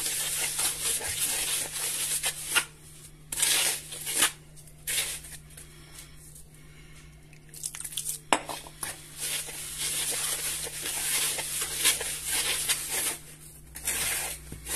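Hands rubbing and raking damp semolina for mbesses against a wooden gasaa bowl: a gritty scraping rustle in repeated strokes, quieter for a couple of seconds around the middle. The grains are being rubbed with water rather than kneaded so that they gather together.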